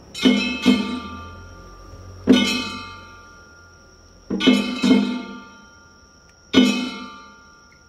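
Festival percussion for a Nagasaki Kunchi boat float: slow strokes on a drum and gong, each ringing out and fading over about two seconds. Several strokes come in quick pairs.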